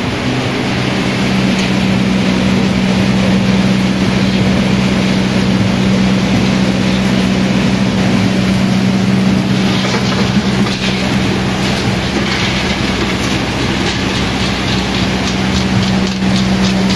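Groundnut decorticator with grader running: a steady motor hum under a dense rattling rush of pods being shelled and kernels shaken through the grader, with the patter of kernels dropping into a metal bucket.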